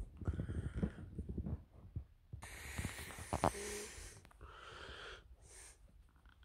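Close handling noise: hands grabbing and moving a plush toy right against the phone, a run of quick rustles and clicks followed by a longer breathy, noisy stretch.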